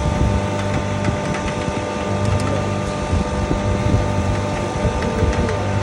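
A 3 HP single-phase double-chamber turmeric grinding machine running steadily: a constant motor hum with a few steady whining tones above it and a few faint light ticks.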